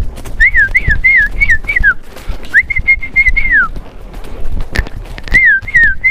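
Loud human whistling used to drive cattle: a quick run of short rising-and-falling whistles, a longer held whistle that drops in pitch at its end, then another run of short whistles near the end. Scattered knocks from the horse's hooves run underneath.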